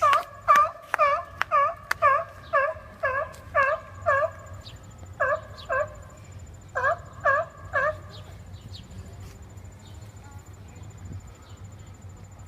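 Seal giving a rapid series of short, pitched calls, about two a second, each dipping and then rising in pitch. There is a brief pause about four seconds in, and the calls stop about eight seconds in.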